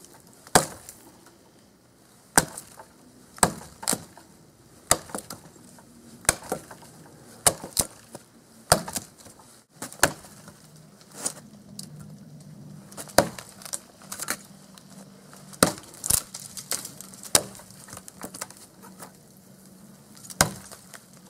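Cold Steel Trail Hawk tomahawk chopping into a thin dead tree, about three inches across, with sharp blows of steel into dry wood roughly once a second.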